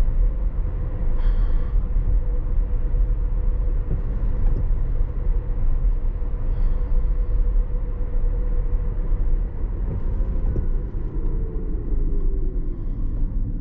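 Road and tyre rumble inside the cabin of a Tesla Model S Plaid at around 40 mph, with a thin steady whine from the electric drive that glides down in pitch near the end as the car slows.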